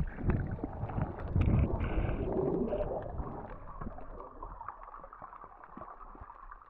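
Underwater sound picked up by an action camera: muffled rumbling and sloshing of moving water, loudest in the first few seconds and then fading. Scattered faint clicks run through it.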